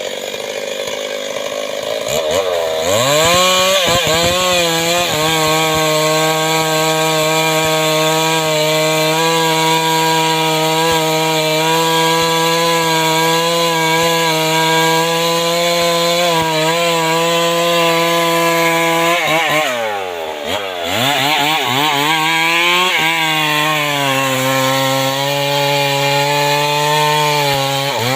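Two-stroke chainsaw cutting mahogany wood. It revs up from idle about three seconds in and holds a steady high pitch under load. Around two-thirds of the way through it drops back briefly, then revs up again and keeps cutting.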